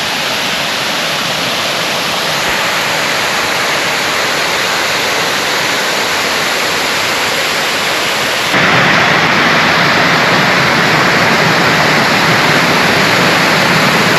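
Waterfall cascade at Erawan Waterfall's second tier: loud, steady rushing water that steps up suddenly and gets louder about two-thirds of the way through.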